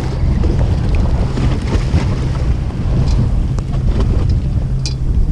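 Fishing boat's engine running steadily with a low hum, under wind buffeting the microphone and sea water washing around the hull. A few light sharp clicks come through, the clearest near the end.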